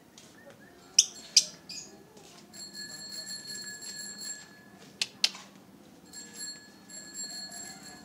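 Lovebird giving short, shrill, piercing calls: two loud ones about a second in and two more about five seconds in. Between and after them, a steady high-pitched ringing tone sounds twice, each time for a couple of seconds.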